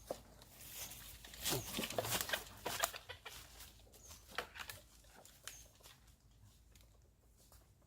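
Chickens clucking: a busy run of short clucks over the first three seconds, then fainter, scattered ones.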